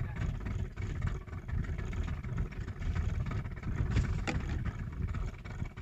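Low, steady rumble of a small fishing boat's engine idling on open water. Two sharp knocks about four seconds in, as the longline is hauled over the side by hand.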